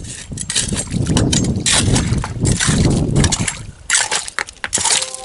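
Water splashing and sloshing in a small pool dug at a spring, in irregular bursts with a lull about four seconds in.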